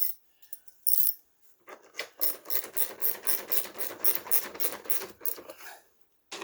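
A few light clicks, then a quick run of scraping strokes, about seven a second, for about four seconds.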